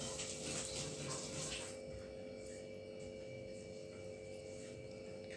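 Soft rustling of wool yarn worked with a crochet hook, mostly in the first two seconds, over a steady electrical hum.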